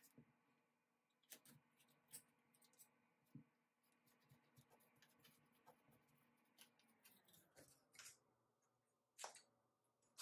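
Near silence with faint scattered clicks and light scrapes of a small hand tool worked against a window frame, the sharpest click about nine seconds in. A faint steady hum underneath fades out about three-quarters of the way through.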